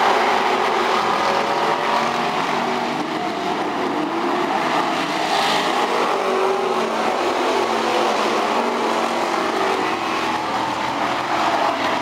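A pack of Outlaw Street Stock dirt-track race cars running at speed, their engines overlapping in a continuous, loud din. About halfway through, one car passes closer.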